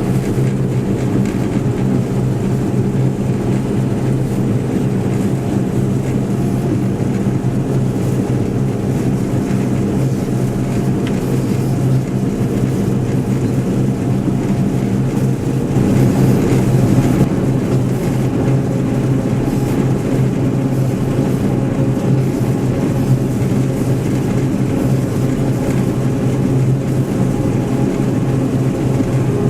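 John Deere 1075 combine harvester running steadily while combining barley: a constant diesel engine drone over the threshing machinery, briefly louder about halfway through.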